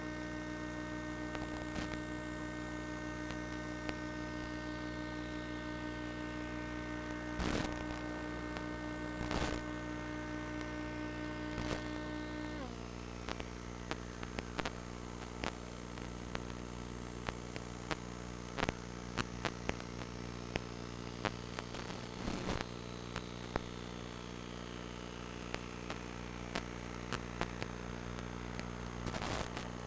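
Steady electrical hum made of many layered tones, with scattered clicks. The higher tones drop out about twelve seconds in, and the clicks grow more frequent after that.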